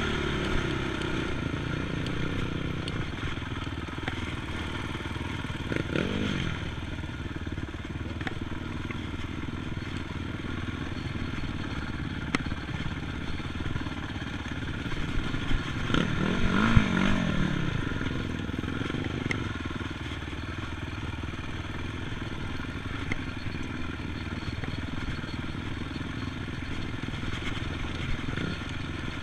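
ATV engine running steadily, with its pitch briefly rising and falling about six seconds in and again, louder, around sixteen to seventeen seconds in.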